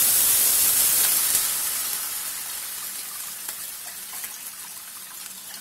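Water poured into a hot pan of oil-sautéed garlic and green chillies, hissing and sizzling loudly as it hits the hot surface, with the splash of the pouring stream. The sizzle fades steadily over a few seconds.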